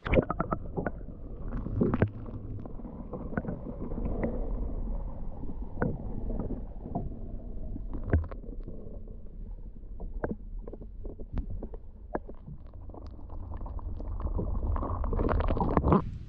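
Water heard underwater, muffled: a low rumbling and gurgling around a hooked redfin thrashing beside a kayak hull, with scattered clicks and knocks. It grows louder near the end.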